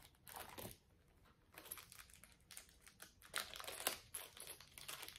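Faint, irregular crinkling and rustling of jewelry packaging being handled and opened.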